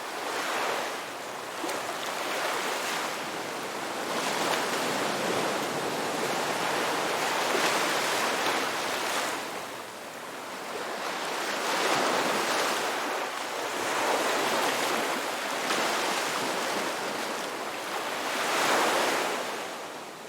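Ocean waves breaking and washing ashore, swelling and ebbing in repeated surges every few seconds, and beginning to fade out near the end.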